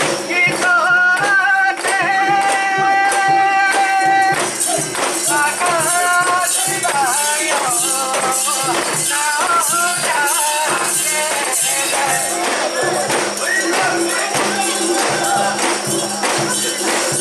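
Festival music at a mikoshi procession: a steady rhythmic metallic jingling, with a held, wavering melody sung or played over it that is strongest in the first few seconds.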